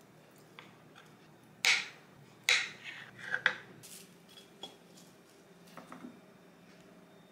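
A kitchen knife slicing through a block of acorn jelly and knocking down onto the cutting board, with two sharp knocks about a second and a half and two and a half seconds in and a quick run of smaller clicks after them. Later, a few faint light taps and rustles as fresh crown daisy greens are laid on a ceramic plate.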